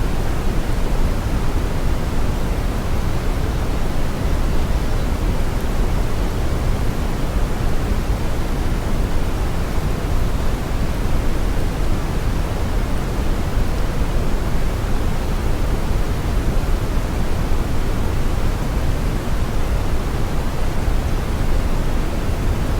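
Steady brown noise: a deep, even rush, strongest in the bass and thinning toward the treble, with no events or changes.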